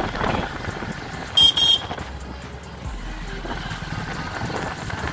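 Motorcycle riding in city traffic with a steady engine and road rumble. Two short, high-pitched horn beeps about a second and a half in are the loudest sound.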